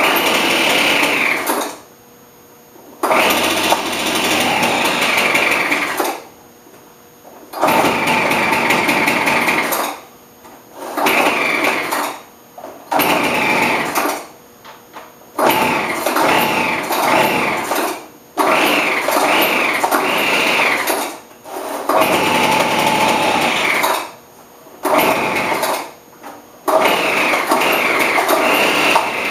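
Craftsman leaf blower's small two-stroke engine running rough while cold: it runs in bursts of a few seconds with the pitch rising and falling, and keeps dropping out for about a second at a time. The owner later traces the poor running to the carburettor's metering diaphragm and gasket having been fitted in the wrong order.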